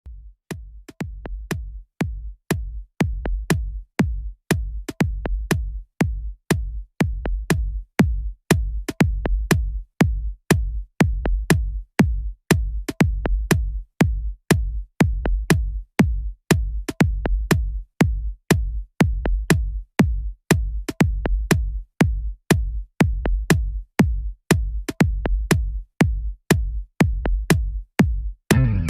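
Electronic background music with a steady drum-machine beat, about two beats a second, over heavy bass.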